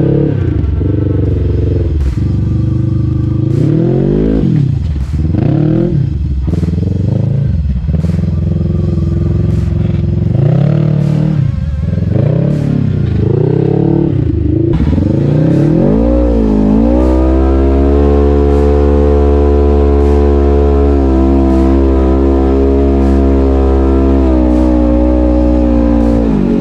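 Polaris RZR side-by-side's engine revving up and down again and again, then about two-thirds of the way through settling into a steady, high held rev.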